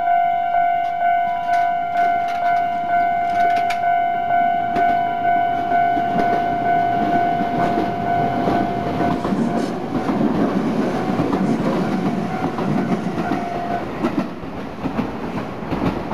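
A Japanese level-crossing alarm's electronic bell, in its standard tone, ringing about twice a second while a Tobu Isesaki Line train passes. From about six seconds in, the train's wheels rumble and clack over the rail joints. The bell fades and stops near the end while the train noise carries on.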